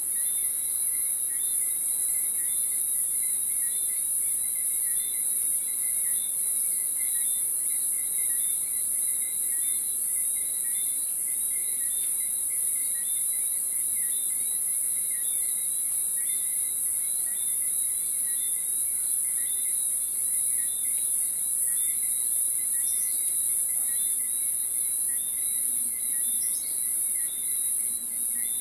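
Evening chorus of crickets and other night insects: a steady high-pitched shrill, with fainter, evenly repeated chirps at lower pitches.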